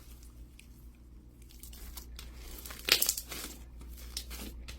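Thick gravel slime being squeezed and stretched in the hands: quiet at first, then a run of sharp crackles from about two seconds in, the loudest near the three-second mark.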